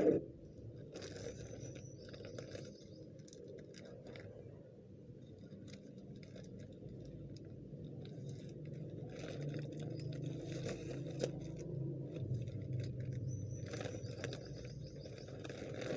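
Plastic courier mailer bag being handled, with scattered crinkles and crackles. A steady low hum sits underneath and grows louder in the second half.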